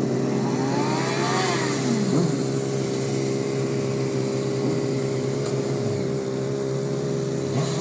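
Sport-bike engines running over a steady drone, with the revs rising and falling several times.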